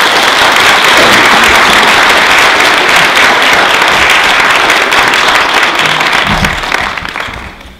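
Audience applause welcoming a speaker, loud and steady, dying away near the end.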